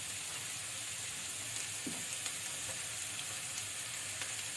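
Sliced white and shiitake mushrooms with onion sizzling in olive oil in a frying pan, a steady hiss with a few faint clicks.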